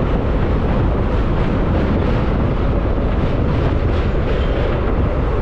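Electric suburban local train running at speed: a steady rumble and rattle of wheels on the rails, heard from inside the coach.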